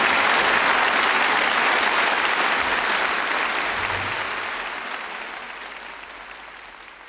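Audience applauding, the clapping gradually fading out.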